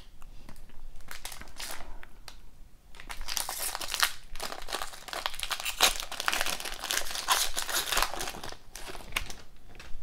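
Foil wrapper of a hockey trading-card pack crinkling and tearing as it is opened by hand, a few short rustles at first, then steady crinkling from about three seconds in until near the end.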